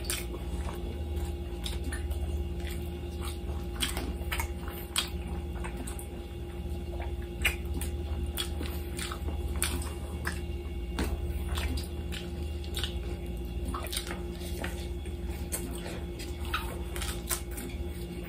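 Eating with gloved hands from a glass plate of rice and grilled lamb chops: irregular small clicks and taps against the plate, with chewing. A steady low hum runs underneath.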